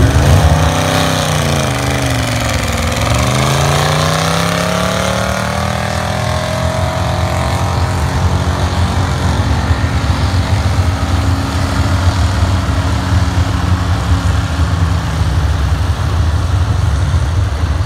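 Vehicle engines running. One falls in pitch for about three seconds and then climbs steadily for about five more, over a steady low engine drone.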